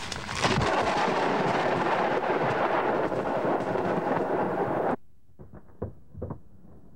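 Thunder from a close lightning strike: a sharp crack, then a loud steady rumble with rain hiss that cuts off abruptly about five seconds in. After that come a few fainter scattered thumps.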